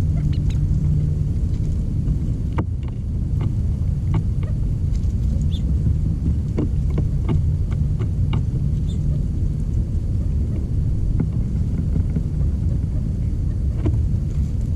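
A steady low rumble with scattered sharp clicks, most of them in the middle of the stretch.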